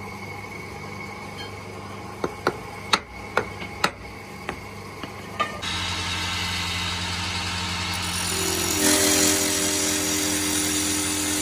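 A run of sharp knocks at a wood lathe, then its electric motor starts and runs with a steady hum. A few seconds later sandpaper rasps against the spinning wooden spindle.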